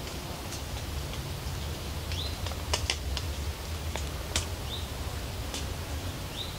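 Pond-side countryside ambience: a bird repeats a short rising call about every two seconds over a steady low rumble, with a few sharp clicks in the middle.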